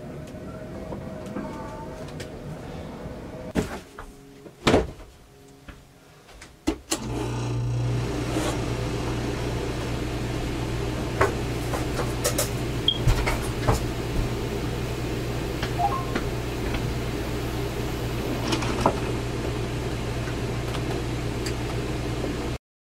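A few knocks, then a steady electric appliance hum switches on abruptly about seven seconds in and runs on, with scattered light clicks over it.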